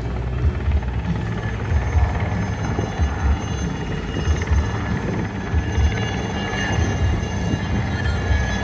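IAR 316B Alouette III helicopter flying past low, a steady rotor and turbine rumble with a repeated low thudding from the blades.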